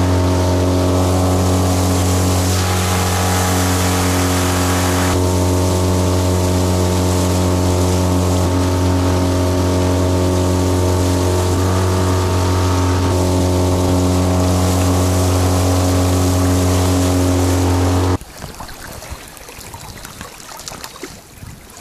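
Suzuki DF20 four-stroke outboard motor running at a steady, unchanging speed, pushing the boat along. The motor sound cuts off abruptly about 18 seconds in, leaving wind buffeting the microphone.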